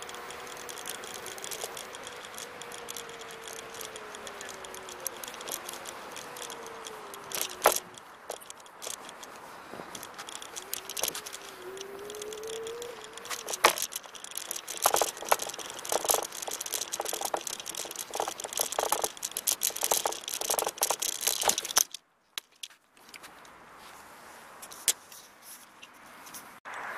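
Electric scooter riding, with a motor whine that slides down in pitch and later rises again as the speed changes, over a steady rush of wind and tyre noise. About halfway through comes a long run of rattling and clicking as the scooter shakes over paving blocks. The sound briefly drops out near the end, followed by a few knocks.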